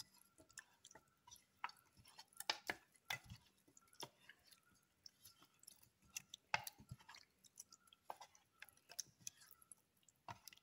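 A hand squishing and turning pieces of marinated fish in spice paste in a stainless steel bowl: faint, irregular wet squelches and small clicks.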